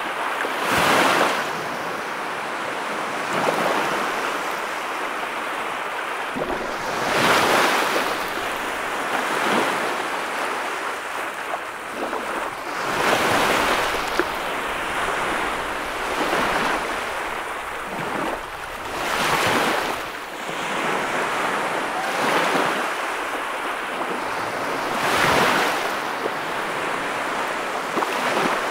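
Small waves breaking and washing up onto a sandy shore: a steady hiss of surf with a louder surge about every six seconds, five in all.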